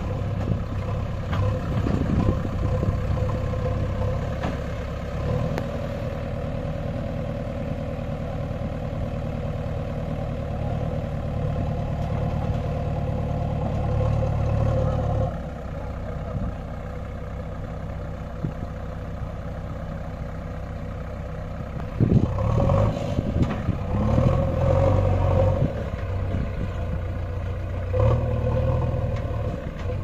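JCB backhoe loader's diesel engine running steadily as its front loader bucket pushes sandy earth, with the engine revving up louder about three quarters of the way through and again near the end.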